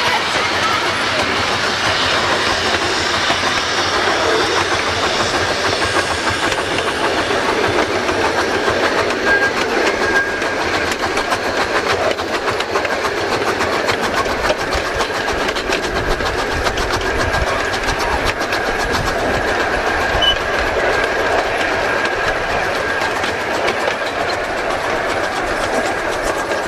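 A 15-inch gauge live-steam train running along the track: steady rolling noise and rail clatter, with a thin, steady high whine through much of it.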